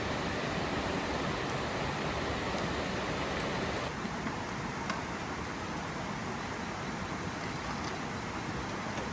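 Steady rush of flowing water. It turns a little quieter and duller about four seconds in, with a couple of faint clicks.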